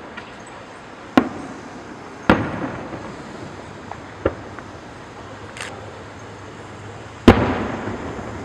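Aerial fireworks shells bursting: three sharp booms, each trailing off in a rolling echo, the loudest near the end, with a smaller pop and a brief high hiss in between.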